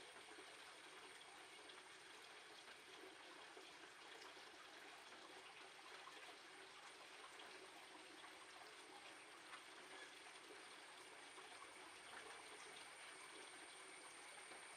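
Near silence: a faint, steady hiss with a thin high whine.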